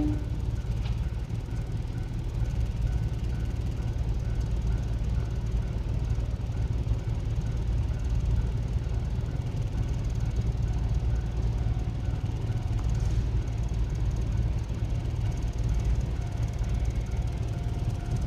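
A horn cuts off right at the start, then a steady low rumble of a train at a level crossing.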